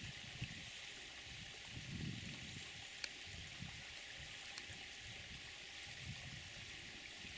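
Quiet bush ambience at a waterhole: a steady high hiss with faint low rumbling that comes and goes, and a couple of small sharp clicks.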